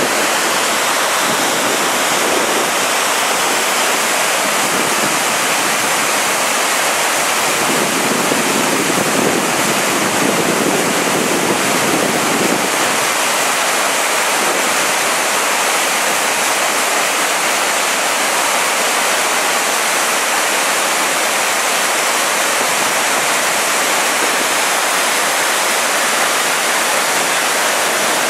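The Great Falls of the Passaic River: water pouring over the falls in a loud, steady rush that does not let up.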